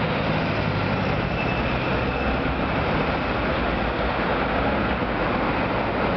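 Steady city street traffic noise: cars and taxis driving past close by with their engines running.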